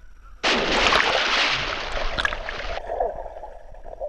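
A loud rush of water noise that starts suddenly about half a second in and cuts off abruptly after about two seconds, with a fainter sound following.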